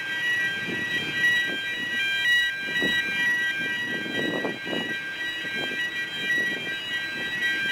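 An electronic warning alarm, of the kind that sounds while a bascule bridge is open, sounds steadily as a repeating pattern of alternating high-pitched tones. Under it is an irregular low rumbling, loudest about four to five seconds in.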